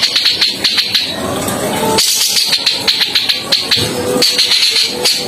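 Music with a fast, rattling percussion beat.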